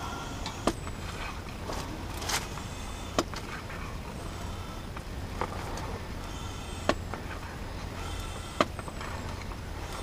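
Compressed air fed from an air line through a clip-on chuck into a motorhome's front suspension airbag, inflating it so the bag takes shape in the coil spring. A steady low hum runs throughout, with a sharp click every couple of seconds.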